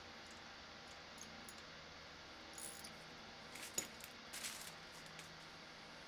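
A few faint metallic clicks and light scraping from a brass toilet bolt being twisted by hand into a plastic anchor in a concrete floor, the sharpest click just under four seconds in.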